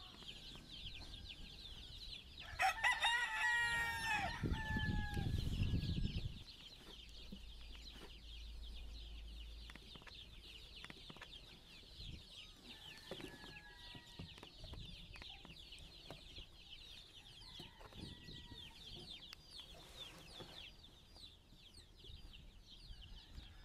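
A rooster crows once, loudly, about two and a half seconds in. A low rumble follows for a couple of seconds. Under it all runs a steady high-pitched chirping, and a few fainter calls come later.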